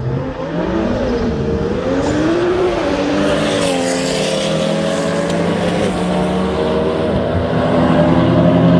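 Several car engines revving hard at once as a group of track cars accelerates past, their notes rising and falling against each other. It grows a little louder near the end as the pack comes by.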